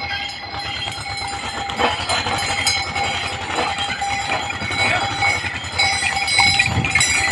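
Small diesel tractor engine chugging at low speed under load, with animal bells ringing steadily over it, as from pack mules or ponies.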